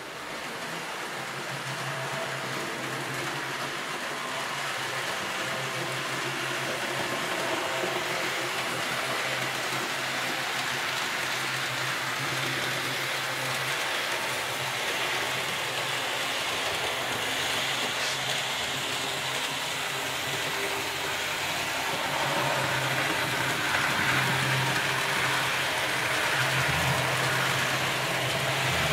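Model trains running on a layout, among them a Bm 4/4 diesel shunter model pulling freight wagons. A steady whirr of small electric motors and wheels rolling on the track, over a low steady hum, a little louder near the end.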